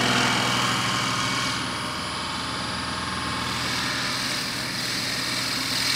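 Wood lathe running slowly while a 10 mm drill bit in a tailstock Jacob's chuck is advanced into the spinning wooden lid. The sound is a steady motor hum with a hiss over it.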